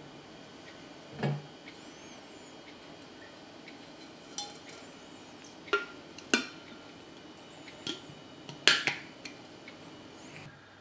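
Clear plastic lid of a Lock&Lock Swing Tumbler, with a swivel slider, handled and fitted onto the stainless steel tumbler: scattered light clicks and knocks of plastic on plastic and plastic on metal, about six or seven in all, the sharpest about nine seconds in.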